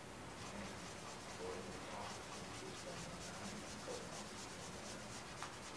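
Carbon pencil scratching on drawing paper in quick, short strokes, thickest in the middle.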